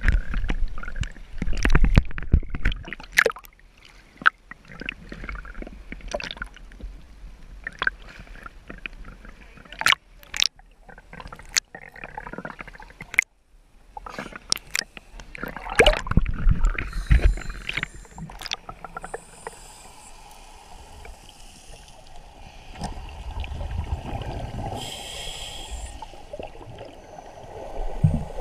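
Seawater sloshing and slapping around a camera held at the surface, with many sharp knocks and taps in the first half. After about twenty seconds the sound turns into a steadier, muffled underwater rushing, with spells of hiss, as the camera goes under.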